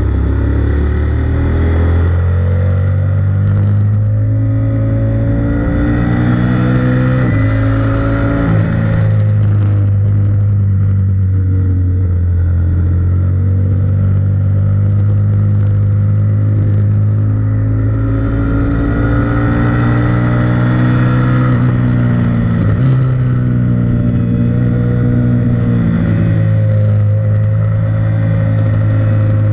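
Sport bike engine at track speed, heard from an onboard camera on the bike. The engine pitch rises and falls as the rider accelerates and slows, with abrupt shifts in pitch at a few points from gear changes.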